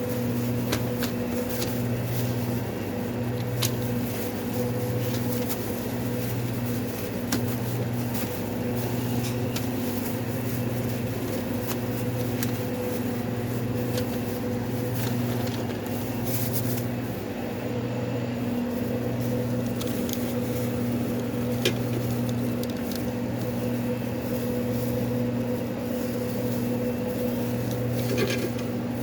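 Steady electric machine hum of restaurant kitchen equipment, its low drone pulsing about once a second, with scattered light clicks and taps from handling.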